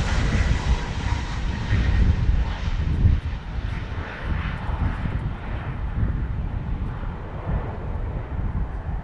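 Jet engines of a Boeing 737 MAX passing close by: a loud, deep rumble with a rushing hiss, the high part of the hiss slowly fading as the aircraft moves away.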